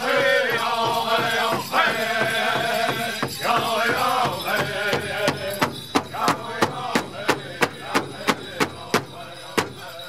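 Powwow drum group singing an intertribal song in unison over a large powwow drum struck together with sticks at about three beats a second. The singing stops about five seconds in, leaving the drum beating alone.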